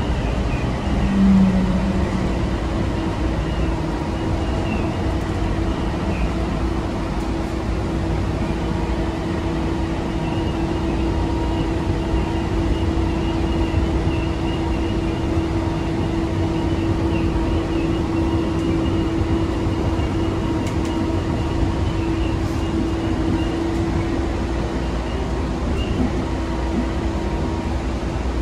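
Bombardier Innovia APM 300 people mover running along its guideway, heard from inside the car: a steady rumble of rubber tyres on the concrete track with a steady drive hum that fades near the end. A short louder tone sounds about a second in.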